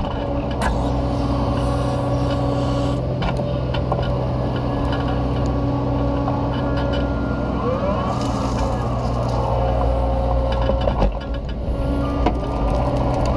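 Caterpillar 304E mini excavator's diesel engine running steadily under load while the hydraulics work the bucket through the dirt, with scattered knocks and clanks from the bucket and a brief rising whine about two-thirds of the way through.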